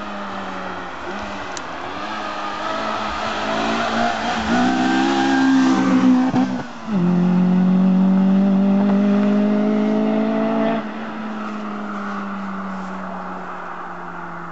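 Honda B16 1.6-litre VTEC four-cylinder engine in an MG ZR rally car, driven hard. The note climbs for several seconds, then breaks and drops in pitch about seven seconds in, as on an upshift. It pulls loud and rising again, then backs off suddenly near eleven seconds and fades with a slowly falling note.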